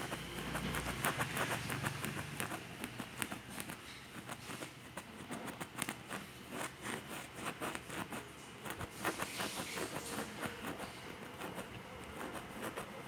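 A kitten playing: irregular light taps, clicks and patters from its paws and claws, several a second, coming in uneven flurries.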